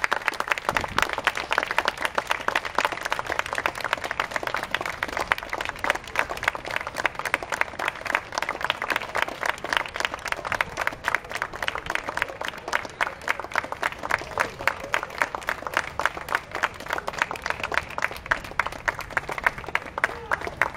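Audience applauding, a long, steady round of clapping from many hands.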